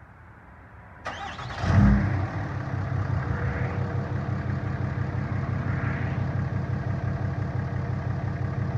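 2008 Dodge Ram 2500's 6.7-litre Cummins turbo-diesel inline-six starting: the starter cranks about a second in and the engine catches with a loud burst just under a second later, then settles into a steady idle.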